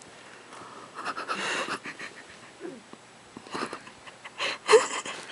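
A sleeping person snoring: three breathy, wheezing snores, the loudest near the end.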